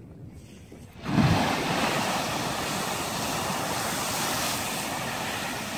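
Strokkur geyser erupting: a sudden burst with a low thump about a second in, then a steady rush of water and steam that slowly eases.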